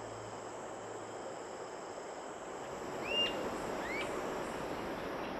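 Rainforest ambience: a steady hiss of background noise, with a bird giving two short upward-sweeping whistled calls about three and four seconds in.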